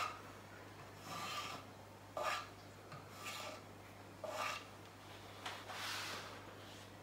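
A stir stick scraping around the inside of a plastic cup of acrylic pouring paint, five faint rasping strokes about a second apart.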